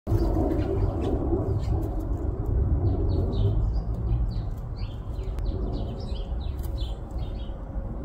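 Small birds chirping in a tree: many quick, short high notes, thickest through the middle seconds, over a steady low rumble.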